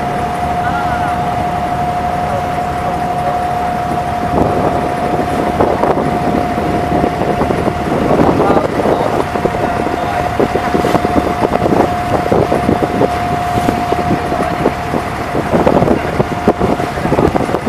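Abra water taxi's diesel engine running steadily with a constant whine, under wind buffeting the microphone that turns gustier about four seconds in.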